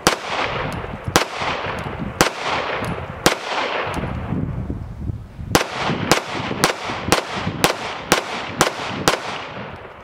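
Grand Power X-Calibur MK 23 9mm pistol being fired: four shots about a second apart, a pause of about two seconds, then a faster string of eight shots at about two a second, each shot followed by a short echo.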